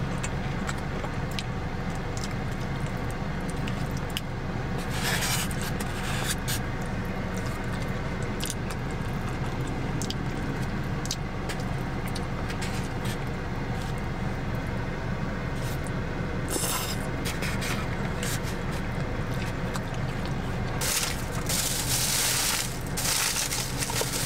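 Mukbang eating sounds: wooden chopsticks tapping and scraping in a styrofoam takeout box, with chewing, as short clicks and a few brief rustling scrapes over a steady low hum.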